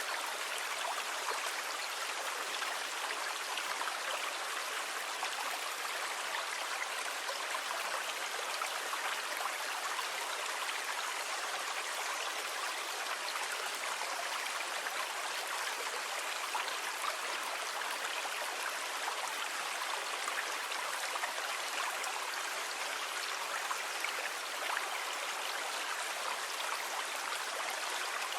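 Steady rushing water: an even hiss with no deep rumble and no separate wave surges rising and falling.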